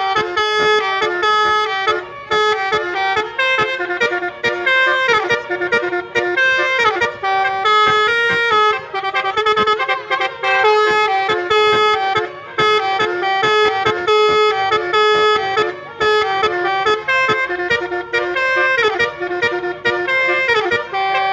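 Telolet-style multi-tone horn playing a quick tune, loud and steady, of held notes with a few pitch slides and short breaks between phrases.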